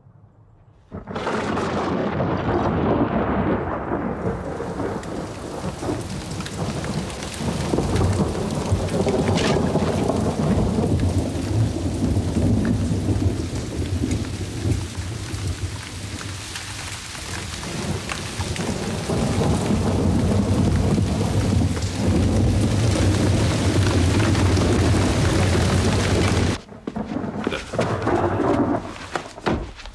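Thunderstorm: heavy rain with deep rolling thunder, starting about a second in and cutting off suddenly near the end.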